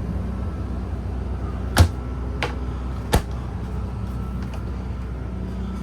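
Refrigerator door being handled: three sharp clicks and knocks from its latch and door, the loudest about two seconds in, over a steady low hum.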